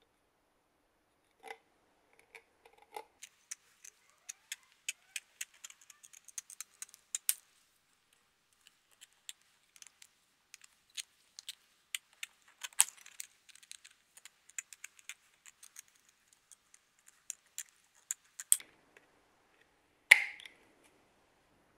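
Aviation tin snips cutting thin copper sheet: a long run of sharp, irregular snipping clicks as the jaws close in short strokes, with a brief pause partway through. One louder knock comes near the end.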